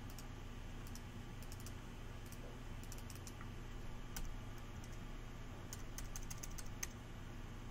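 Computer keyboard keys pressed lightly, scattered single keystrokes with a quick run of presses about six seconds in, as text is deleted.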